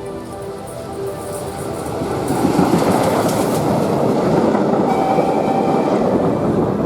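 Steam-hauled passenger train led by the TKt48-18 tank locomotive passing close by, its wheels rattling and clattering along the rails. It grows louder about two seconds in, with a brief steady high tone around five seconds in.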